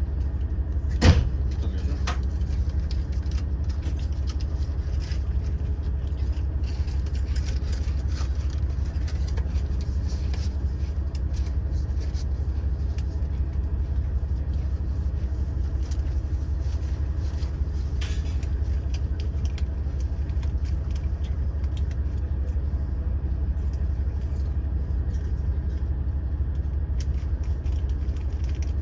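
Steady low rumble of a stationary diesel railcar's idling engine, heard from inside the passenger carriage, with one sharp knock about a second in.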